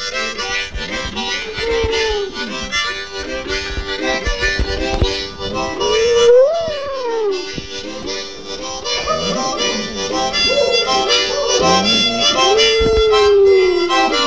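A harmonica playing held chords while a dog howls along in several long, wavering howls that rise and fall in pitch. The loudest howl comes about six seconds in, and a long falling howl comes near the end.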